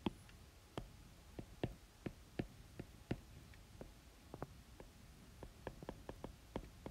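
Stylus tip tapping and clicking on an iPad's glass screen while handwriting: a string of sharp, irregular ticks that come faster near the end.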